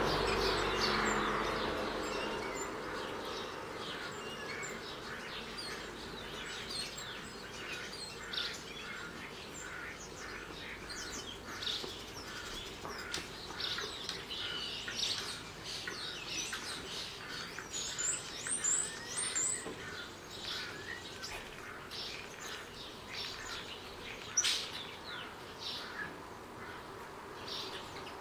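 A European starling sings a rambling string of short whistles, clicks and chatter, mixed with imitations of other birds' calls. Partway through comes a run of high slurred whistles, and near the end a single sharp loud note. A low rumble fades out over the first two seconds.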